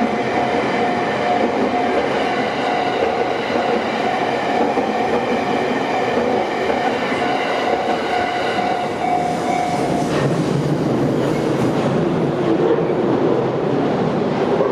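A train passing over a Japanese railway level crossing, its wheels clattering on the rails, while the crossing's warning bell rings steadily. The bell cuts off abruptly about ten seconds in, and the train's rumble carries on.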